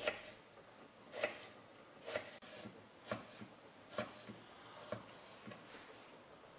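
Small kitchen knife slicing through a cucumber and knocking on the wooden cutting board, about one cut a second, the later cuts softer.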